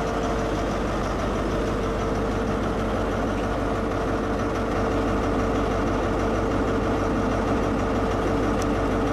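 Diesel engine of a Class 43 HST power car, 43092, idling at a standstill: a steady, unchanging engine note with a constant whine over it.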